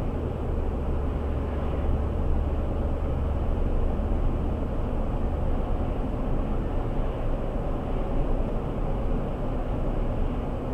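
Steady engine and road noise inside a moving vehicle's cabin: a continuous low drone with tyre rumble, which eases slightly about six seconds in.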